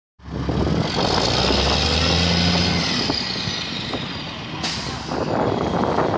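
Diesel engine of a heavy tractor truck hauling a boat trailer, running with a steady low note that eases off after about three seconds. A short, sharp hiss about four and a half seconds in.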